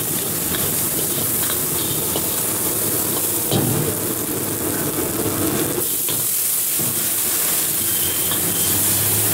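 Chopped onion, capsicum, green chillies and garlic sizzling in hot oil in a steel wok, stirred with a metal ladle that clinks and scrapes against the pan. The hiss grows brighter past the middle as water is splashed into the hot wok.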